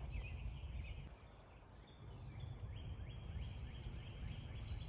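Outdoor ambience: a steady low rumble with faint, repeated short high chirps, typical of small birds calling.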